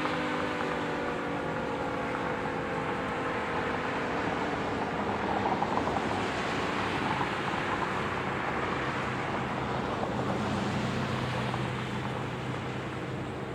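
Thunderbolt 1000T outdoor warning siren winding down, its falling tone fading out within the first couple of seconds. Road traffic noise follows, swelling and easing around the middle, with a steady low hum later on.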